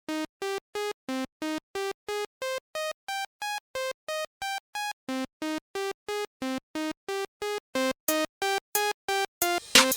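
Background music: a synthesizer plays a bouncy melody of short, evenly spaced notes, about three a second. A hissing cymbal-like sound joins each note near the end as the music builds.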